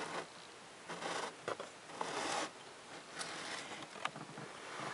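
Pleated paper cabin air filter being slid out of its plastic housing behind the glove box, its frame rubbing and scraping against the housing in several short rasps.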